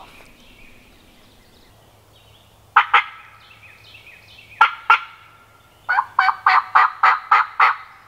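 A hand-held turkey call blown at the mouth, imitating a wild turkey: two pairs of sharp notes, then near the end a run of about eight evenly spaced notes, about five a second. The hunter is calling toward a gobbler that answered from far off.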